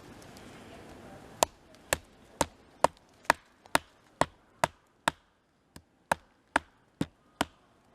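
A small mini hatchet being batoned into wood: a wooden baton stick strikes the spine of the hatchet head about thirteen times at roughly two blows a second, each a sharp knock with a short ring, driving the blade into the wood. The blows start about a second and a half in.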